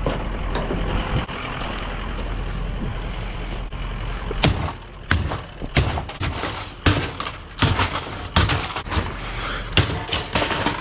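A vehicle engine running steadily, joined from about four seconds in by a string of sharp, irregular knocks and clunks.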